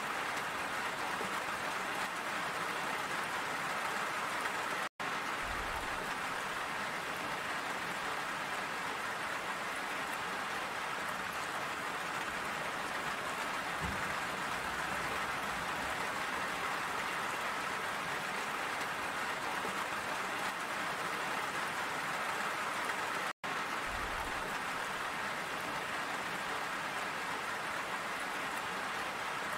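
Steady rain falling on a surface, an even hiss, cutting out to silence for an instant twice.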